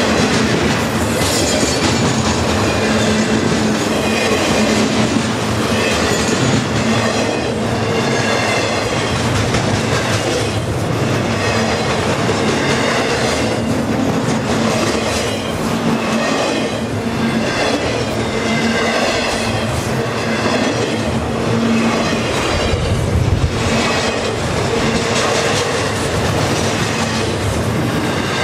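Long CSX intermodal freight train of trailers on flatcars rolling steadily past, its steel wheels clicking over the rail joints and squealing against the rails in wavering high-pitched tones.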